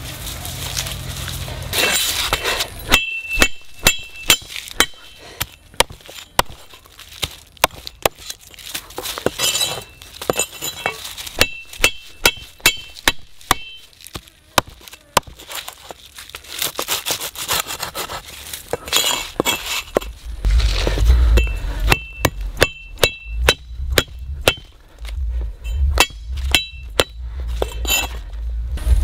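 A crude iron blade chopping lemongrass stalks on a wooden stump: a long run of sharp chops, many with a brief metallic ring, with a short pause about halfway through.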